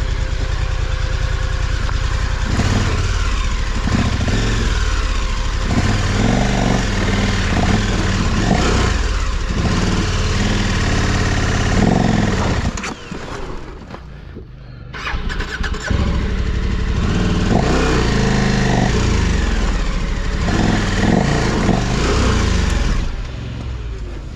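KTM 1290 Super Adventure R's V-twin engine revving in uneven bursts, dropping away for about three seconds around the middle before picking up again and running on.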